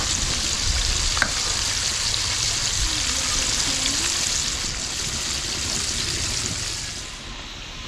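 Chicken pieces deep-frying in a wok of hot oil: a steady, dense sizzle and crackle, with one sharp click about a second in. It quietens near the end.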